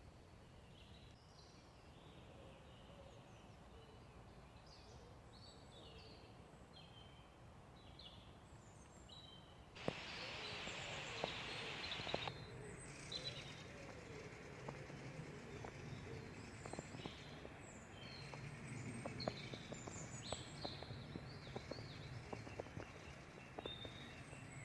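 Woodland birdsong: scattered short chirps and phrases from small birds. About ten seconds in comes a two-second rush of noise. After that, footsteps crackle on the woodland floor in small irregular clicks.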